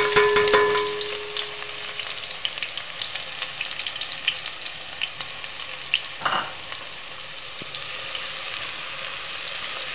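Sliced onions sizzling as they fry in a pot of hot oil, loudest in the first second or two after they go in and then settling to a steady sizzle. A spatula stirs and clicks against the metal pot, with one knock about six seconds in.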